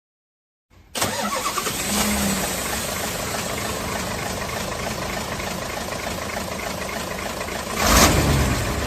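A vehicle engine starting about a second in and settling into a steady idle while being warmed up, with a short rise in revs near the end.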